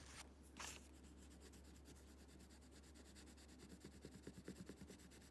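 Faint scratching of a colored pencil rubbed over paper laid on a carved linoleum block, with a run of quick back-and-forth strokes about four seconds in.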